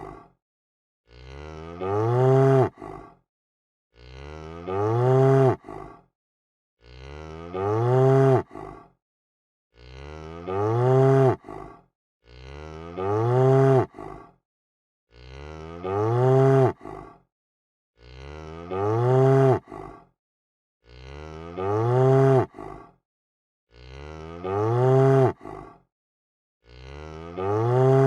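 A cow mooing: the same long moo repeated about every three seconds, with silence between. Each moo rises and then falls in pitch and ends with a short, quieter tail.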